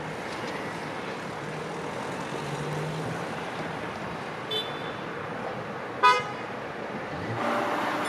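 WSSB level-crossing barrier boom rising, with a low hum that climbs slightly and stops about three seconds in, over a steady background rumble. About six seconds in comes one short, loud horn toot, with a fainter short toot just before it.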